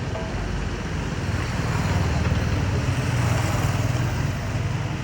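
JCB backhoe loader's diesel engine running, a steady low drone that swells louder for a couple of seconds in the middle as it works under load digging soil.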